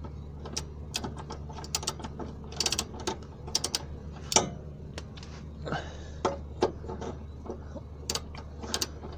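Ratchet wrench clicking in short, irregular bursts as a gearbox-mount bolt is wound out.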